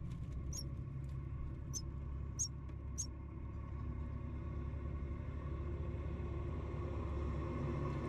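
Nestlings begging for food: four short, high-pitched cheeps in the first three seconds, over a steady low hum.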